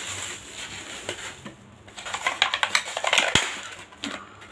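Thin plastic bag crinkling and a styrofoam takeaway box being handled and tapped, with a quick run of small clicks and crackles about two to three and a half seconds in.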